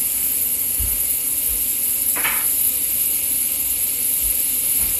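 Butter melting and sizzling in a hot frying pan: a steady high hiss, with a brief rustle about two seconds in.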